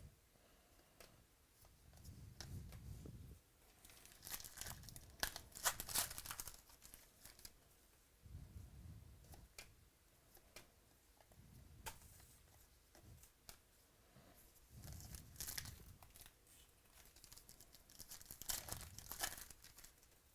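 Trading-card pack wrappers being torn open and crinkled, with cards handled between. The tearing comes in two main bouts, about four to six seconds in and again near the end.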